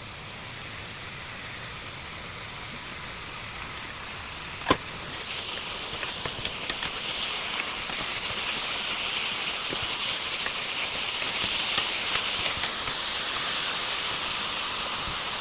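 Food sizzling and crackling in a hot frying pan, growing louder, with one sharp knock about five seconds in.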